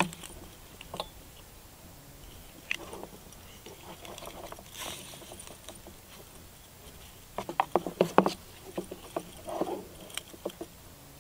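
Leather strap being worked through a metal buckle: scattered clicks and rattles of the buckle hardware with leather rubbing, and a quick flurry of clicks a little past the middle.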